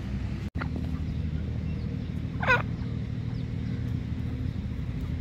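Grey francolin giving one short, loud warbling call about halfway through, over a steady low rumble.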